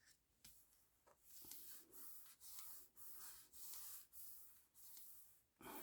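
Faint rubbing and rustling of paper on card as a glued paper hinge is pressed and smoothed down by hand, in a series of short, even strokes, about two a second.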